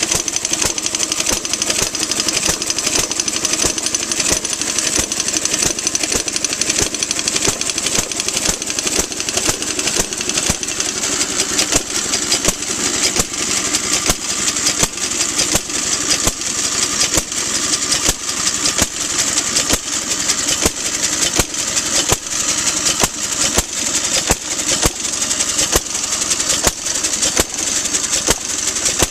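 1920s Ideal Model R hit-and-miss engine, built by the Olds (REO) company, running on buzz-coil ignition. It gives a fast, steady run of sharp firing beats over a high hiss.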